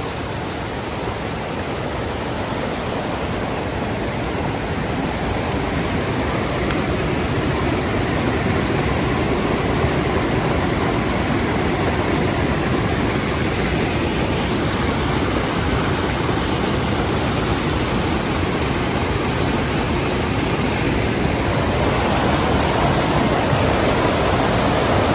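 Creek water rushing steadily over the lip of a waterfall, a loud even hiss and roar that grows gradually louder.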